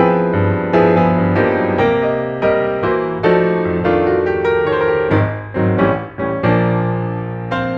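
Background music: piano or electric piano playing a series of chords, a new chord struck about every half second, ending on a final chord that rings out and fades.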